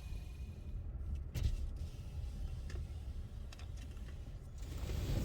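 Low rumble of a car engine idling, with a few scattered light clicks and taps.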